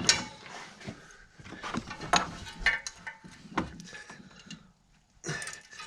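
Spanner work on the fan pulley bolts: a few sharp, irregular metallic clicks and knocks, with quieter clatter between them.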